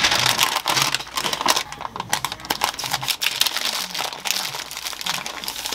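Sheet of wrapping paper crinkling and rustling as it is folded tightly around a sandwich. The crackling starts sharply and goes on throughout.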